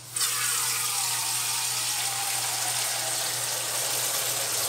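Tap water spraying from a faucet's shower-spray nozzle into a metal cooking pot as it fills: a steady rush of water that starts abruptly just after the start.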